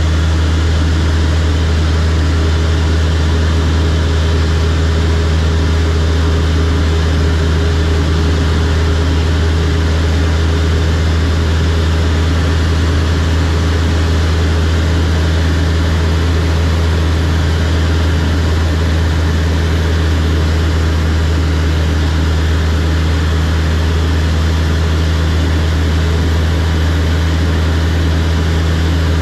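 Small single-engine propeller aircraft's engine and propeller running at steady cruise power, heard from inside the cockpit as a constant low drone that holds the same pitch throughout.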